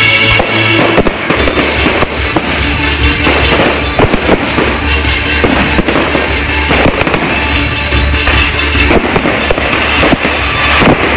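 Fireworks going off in rapid, irregular bangs and crackles, with music playing throughout.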